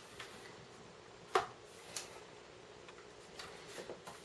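Handling noise from a car stereo head unit being turned over in the hands: a few light clicks and knocks, the sharpest about a second and a half in.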